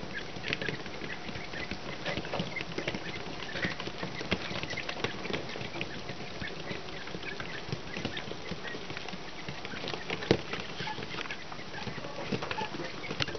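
A group of ten-day-old chicks pecking and scratching at feed and burlap, making many quick, irregular little taps, with faint brief peeps scattered among them and one louder tap about ten seconds in.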